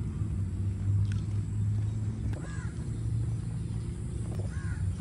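Low rumble of wind on the microphone during an outdoor walk, with two short bird calls about two and a half and four and a half seconds in.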